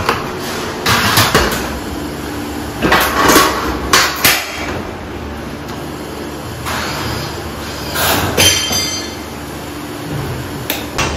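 Irregular knocks and clatter from interior drywall work, about half a dozen over the stretch, over a steady background hum. One knock about two-thirds through rings briefly like metal.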